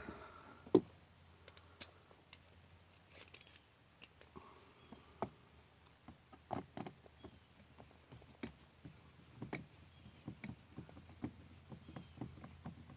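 Scattered light clicks and taps from handling a plastic ATV display housing and its small screws, with one sharper knock about a second in, over a faint steady low hum.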